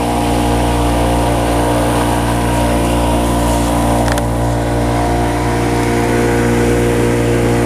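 Small motorboat's engine running steadily at cruising speed, with the rush of water and wind against the hull.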